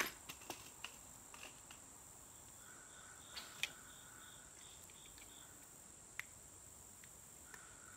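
Faint steady high-pitched insect chirring of crickets, with a brief row of chirping pulses midway. A few light clicks stand out as the hook is worked out of a fish's mouth.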